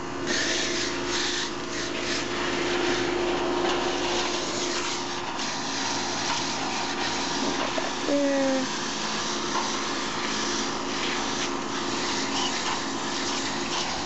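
Water hissing steadily from a garden-hose spray nozzle onto a running Carrier central air-conditioner's outdoor condenser coil, cooling the coil; the unit's steady hum runs beneath the spray.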